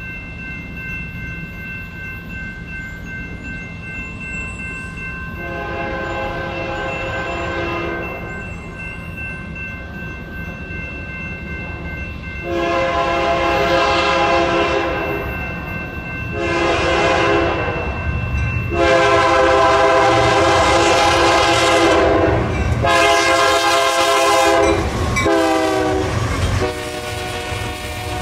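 BNSF freight locomotives' air horn blowing for a grade crossing: two long blasts, a short one, then a long one held as the locomotives arrive. The chord drops in pitch as they pass, under a low rumble of diesel engines and double-stack intermodal cars rolling by.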